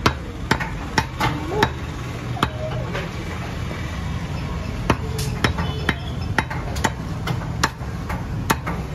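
Butcher's cleaver chopping goat head skin and meat on a wooden stump block: about a dozen sharp, irregular strikes, with a pause of a couple of seconds midway. A steady low hum runs underneath.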